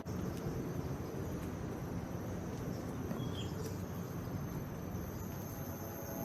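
Insects buzzing in a steady, high-pitched drone over a low rumble of background noise, with one brief chirp about three seconds in.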